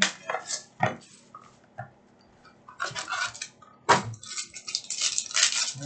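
A trading-card box being handled and its foil pack crinkled and rustled, with two sharp taps, about a second in and about four seconds in.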